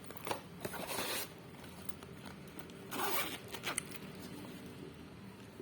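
Skincare packaging being handled: two quick zip-like swishes of plastic, one about a second in and one about three seconds in, with small clicks and rustles between them.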